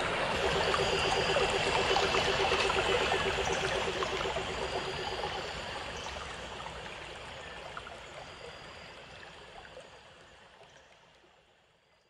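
A steady rushing noise like running water, with a faint pulsing tone under it for the first few seconds, fading out slowly to silence near the end.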